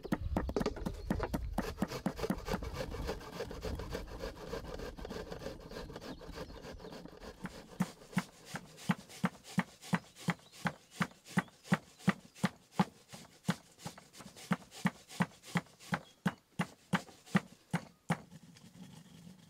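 Food prep on a wooden board: several seconds of rubbing and scraping, then a steady run of knife chops on the board, about two to three a second, stopping near the end.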